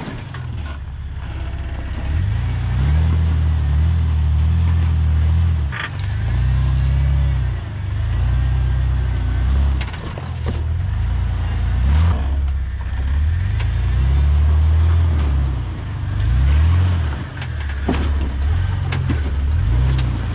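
Jeep JL Rubicon engine revving up and falling back again and again as it crawls over boulders, with a few sharp knocks along the way.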